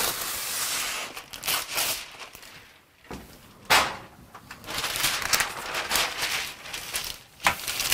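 Parchment paper rustling and crinkling as it is spread and smoothed over a cookie sheet by hand, in a string of separate swishes.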